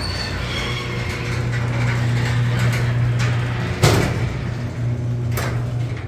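Electric garage door opener running as the overhead door goes up: a steady motor hum with rattling from the door. There is a sharp clunk about four seconds in and a lighter one a little later, and the hum stops near the end.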